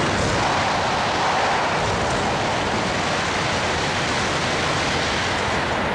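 Coupled E3 and E5 series Shinkansen train passing through the station at very high speed: a loud, steady rushing roar of wheels on rail and air.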